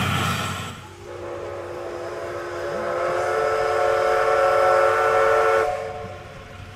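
Steam whistle of a Tobu C11 steam locomotive, one long blast of about five seconds. It starts about a second in after some rushing train noise, grows louder, and cuts off sharply.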